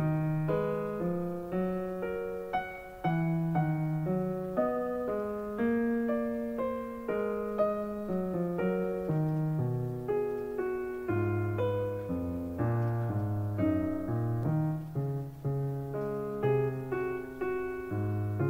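Background piano music: a run of single notes and chords, each struck and then dying away.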